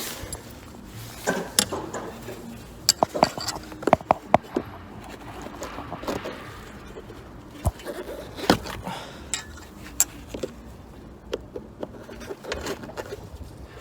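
Irregular sharp clicks, knocks and scrapes of hands and a tool working a Mercedes W204 front parking sensor loose from its mount in the bumper, with the loudest knocks about three to four and a half seconds in and again about eight and a half seconds in.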